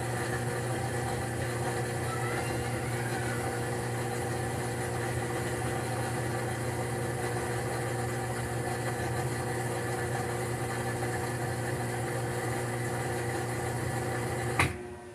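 Maytag washing machine running its spin cycle, a steady motor hum with the drain pump working after a wiring fault to the pump was fixed. A sharp click near the end, after which it drops away.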